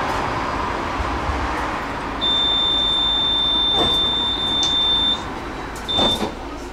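Electronic beep sounding inside a tram: one long steady high tone of about three seconds, then a short one near the end, over the tram's running noise, with a couple of sharp clicks.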